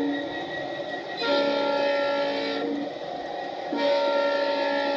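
Sound system of a USA Trains G-scale Santa Fe SD70MAC model diesel locomotive sounding its multi-chime air horn in separate blasts. One blast ends just after the start, a second runs from about one to nearly three seconds in, and a third begins about four seconds in. A lower running rumble fills the gaps.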